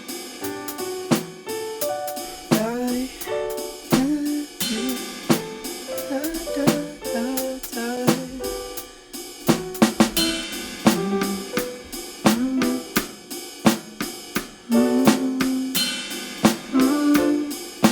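Home-made hip-hop instrumental beat: drum-kit hits of snare, hi-hat and kick over a line of short melodic notes, some gliding in pitch, with no vocals yet.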